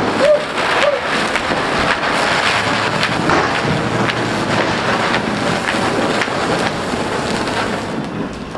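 A ground firework spraying sparks, giving off a steady hissing, crackling rush with scattered small pops.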